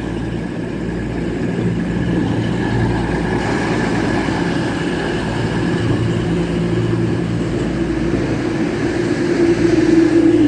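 Class 222 Meridian diesel multiple unit's underfloor diesel engines running steadily, with a humming tone that grows louder near the end.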